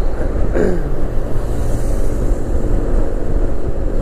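Yamaha NMAX scooter running at highway speed, with a steady engine drone and heavy wind rumble on the microphone. About half a second in, a falling tone sweeps down as a car passes close alongside.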